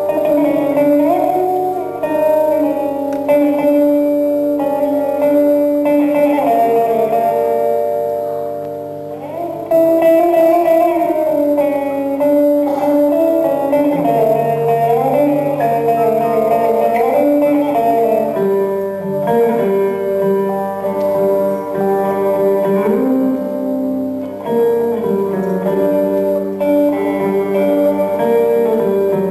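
Instrumental music: a plucked string instrument playing a slow, bending melody over a steady low drone.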